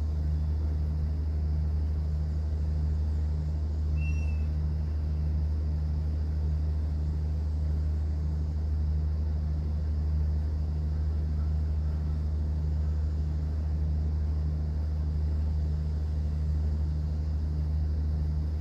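Steady low drone of a cruise boat's engine, with an even wash of water noise over it. One short high chirp comes about four seconds in.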